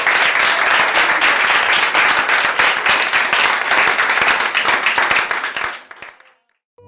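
A group of people applauding, many hands clapping fast and unevenly; the applause fades out about six seconds in.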